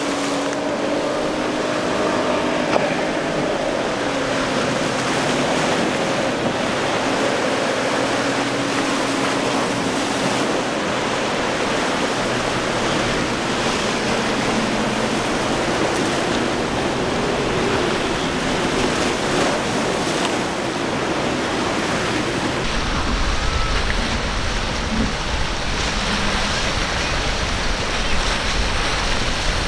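Paramount center console's single Mercury outboard running through rough surf, its drone dipping in pitch and fading out over the first ten seconds or so, over the steady wash of breaking waves. About three-quarters of the way in, a low wind rumble on the microphone sets in suddenly.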